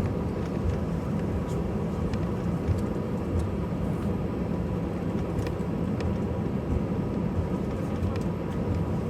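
Steady low rumble and hum inside the cabin of an Airbus A320 airliner on the ground, with a faint tone running through it and a few light ticks.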